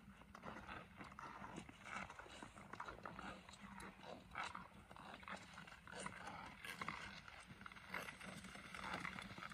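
Faint skating sounds on clear lake ice: skate blades and pole tips striking and scraping the ice in an irregular string of short clicks and knocks.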